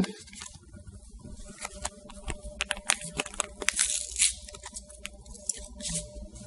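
Alcohol prep pad sachet being torn open and its wrapper crinkled: a run of small crackles and sharp clicks, busiest in the middle of the stretch.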